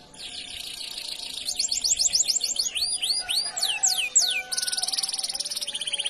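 Domestic canary singing: a fast rolling trill, then a run of quick rising notes and a series of clear downward-sliding whistles, and another dense rolling trill near the end.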